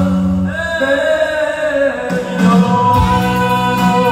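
A man singing karaoke with long held notes over backing music, played through a PA loudspeaker system in a large hall.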